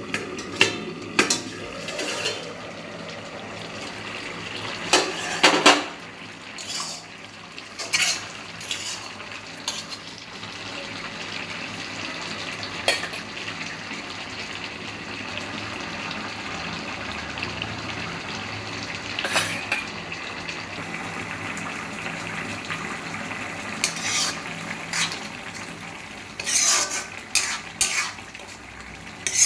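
A metal spatula scraping and clinking against an iron kadai as a thick curry is stirred, with a steel lid clattering as it is handled. The sharp knocks come at irregular times over a steady hiss from the simmering pot.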